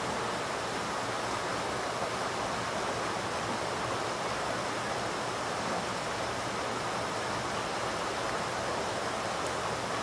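Small, swollen, muddy stream rushing over rocks and rapids, a steady full rushing of water.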